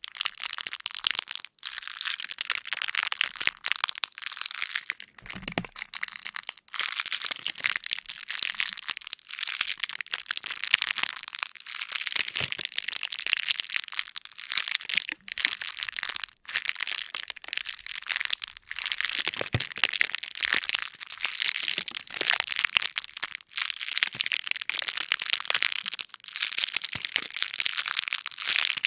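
Dense, continuous high-pitched crackling and crunching made of many tiny clicks, broken by a few brief drop-outs.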